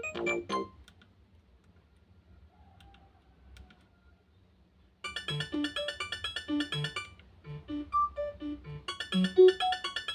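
Synthesized Nokia ringtone playing through a Nokia 110 phone's speaker. One tune ends in the first second, then after a pause of about four seconds with a few faint clicks, another ringtone starts, with bass notes under higher chords in a steady rhythm.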